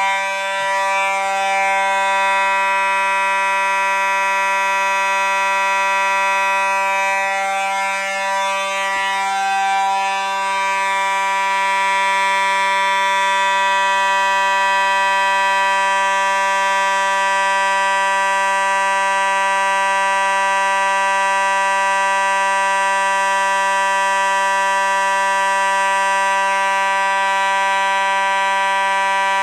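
Fire alarm horns sounding continuously in a test: one loud, steady, buzzy tone that does not pulse or break.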